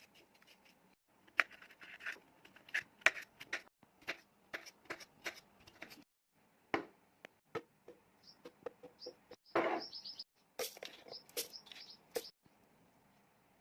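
Irregular sharp clicks and knocks of kitchen work in juice preparation, in short spliced clips, with a few faint high chirps about eight to ten seconds in.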